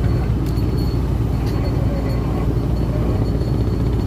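Fishing boat's engine running steadily, a low even rumble.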